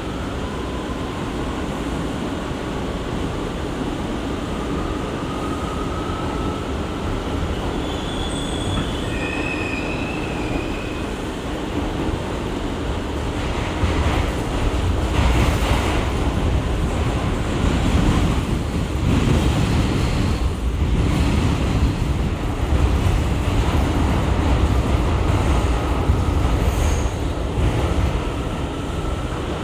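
R179 subway car running on the track, heard from inside the car: a steady rumble of wheels on rail, with a faint whine from its Bombardier MITRAC propulsion rising in pitch over the first several seconds. Brief high wheel squeals come about eight to ten seconds in. From about halfway through, the rumble grows louder, with repeated clacks of the wheels over the rail joints.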